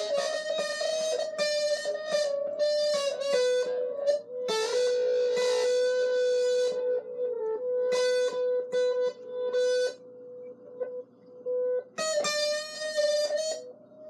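Solo acoustic guitar played with picked single notes and ringing tones. The playing thins to a few sparse notes about ten seconds in, then picks up again about two seconds later.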